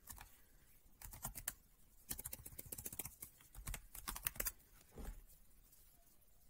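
Typing on a computer keyboard: several quick runs of key clicks, spread over a few seconds.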